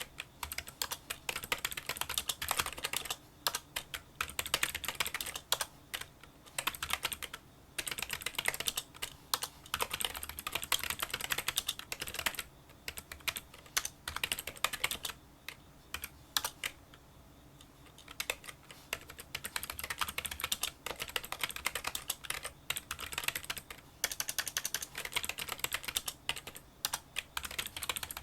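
Fast touch-typing on a Kinesis Freestyle Solo split keyboard with membrane key switches: a rapid run of small, light clicks, quieter than a typical membrane keyboard. There are brief pauses, the longest about a second and a half a little past halfway.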